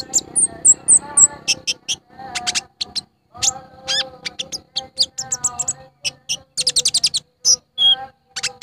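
Brown-throated sunbird (konin) calling: sharp, high chips and short sweeping chirps, with a fast run of notes about two-thirds of the way through.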